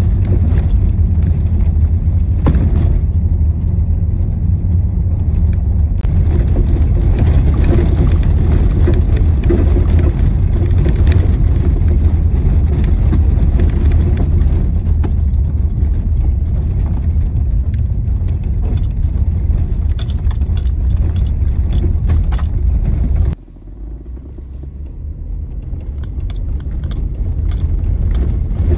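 Car driving on a corrugated dirt road, heard from inside the cabin: a loud, steady low rumble from the tyres on the rough surface, with frequent small knocks and rattles. About 23 seconds in the sound drops suddenly and then builds back up.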